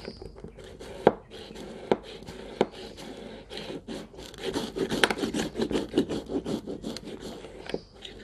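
Cold milk being frothed by hand in a tall glass plunger frother: a few sharp knocks, then a run of quick rubbing strokes, several a second, as the plunger is pumped and the milk turns to foam.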